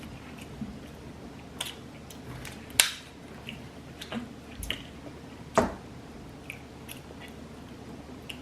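Close-miked eating of deep-fried seafood: chewing and biting, with scattered sharp crunchy clicks. The two loudest come about three and about five and a half seconds in.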